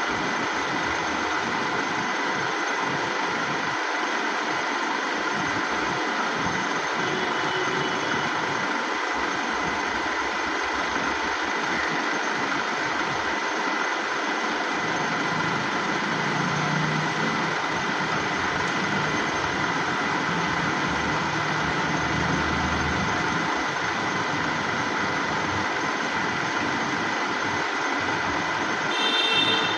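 Steady mechanical running noise: an even hiss with a faint high whine, joined by a low hum for several seconds in the middle.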